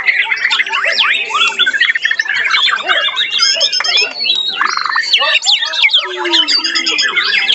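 White-rumped shama (murai batu) singing in its cage: a fast, varied stream of whistles, slurred notes, trills and harsh chatter, thick with overlapping song.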